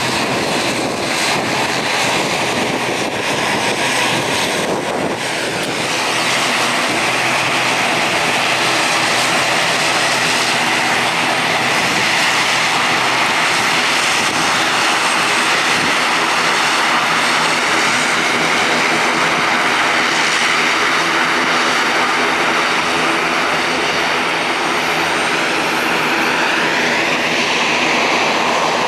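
ATR42-600's twin Pratt & Whitney PW127 turboprop engines running at taxi power: a steady turbine whine over an even propeller drone. About five seconds in the tone shifts, and near the end the whine rises in pitch as the aircraft turns its tail toward the listener.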